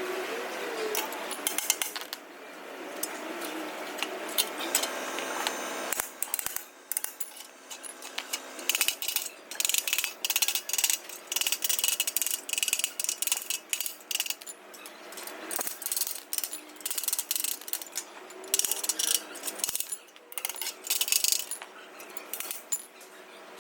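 Irregular metallic clicking and tapping of hand tools working on car body metal, in quick runs of sharp taps that come thickest in the middle of the stretch and again near the end.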